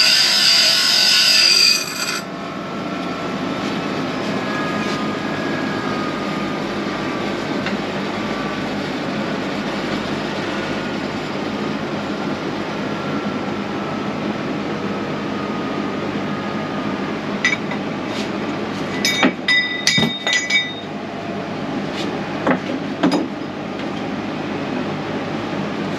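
A loud hissing power-tool or welding noise cuts off about two seconds in, leaving a steady fan-like shop hum. From about 17 seconds in come a series of sharp metallic taps and clinks on steel, some ringing briefly.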